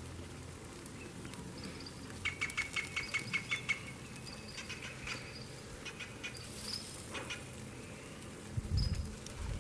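T-bone steaks sizzling on a hot grill under a steady low hiss. About two seconds in comes a rapid run of high, sharp chirps, with a few scattered chirps after it and a couple of low bumps near the end.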